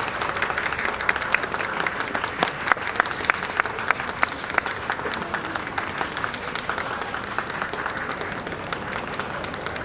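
A crowd of spectators applauding, with a few louder single claps standing out in the first half.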